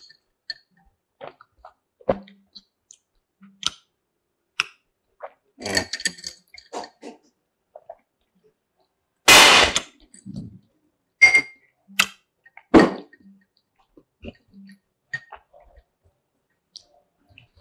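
Quiet sipping of an iced coffee through a straw: scattered small clicks and knocks of ice and glass, with one louder breathy noise about nine seconds in.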